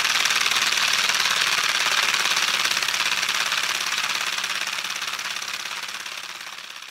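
Homemade brass compressed-air engine running fast, with a rapid chuffing of exhaust puffs over a hiss of escaping air. The builder says it still leaks. The sound grows steadily fainter over the last few seconds.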